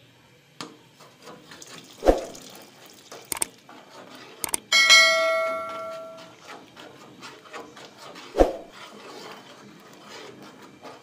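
Metal spoon stirring custard into hot milk in a metal pot, with faint scraping and a few sharp knocks of spoon on pot. About five seconds in, a single loud clang of spoon on pot rings with a clear metallic tone and fades over about a second and a half.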